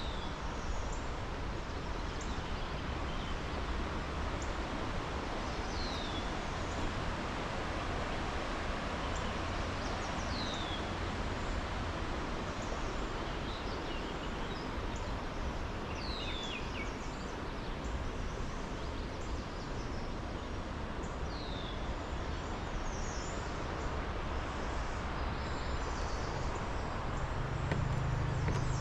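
A bird repeats a short falling whistle about every five seconds over a steady rushing background noise, with other faint chirps. A low hum comes in near the end.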